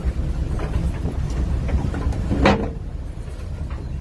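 Steady low rumble of wind on the microphone and the trawler's engine on deck in rough seas. About two and a half seconds in, a single sharper knock stands out, such as wooden fish crates being handled.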